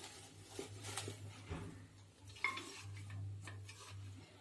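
Handfuls of washed amaranth leaves being moved from a steel bowl into a metal pressure cooker pot: soft leafy rustling with light scattered knocks against the metal and one small clink about halfway through.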